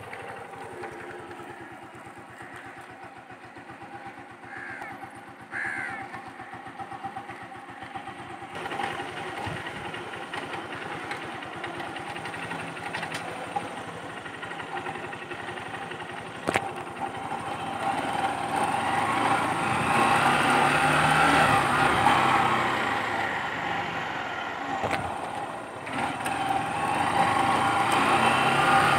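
A motorcycle engine running with an even low beat, then pulling along with the sound growing louder in the second half.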